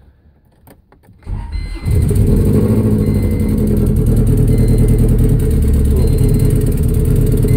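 A Honda Civic's swapped F-series four-cylinder engine cranks briefly and starts about a second and a half in, then runs steadily at idle, heard from inside the cabin. It is running on three cylinders: one cylinder has zero compression after the timing belt snapped, which the owner hopes is only a bent valve.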